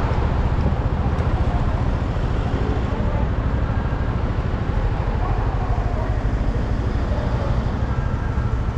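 Yamaha NMAX single-cylinder scooter under way in city traffic: steady engine and road noise with a heavy low rumble throughout and no sudden events.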